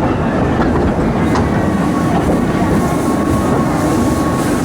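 Theme-park steam train running along its track, a steady rumble and rattle of the carriages on the rails, with a faint thin whine holding through most of it.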